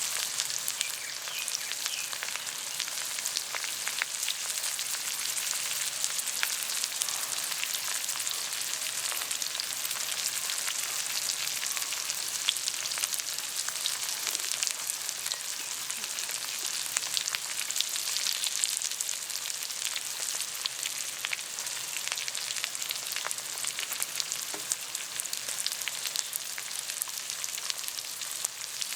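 Food sizzling and crackling on a hot camping griddle, a steady dense hiss of tiny pops.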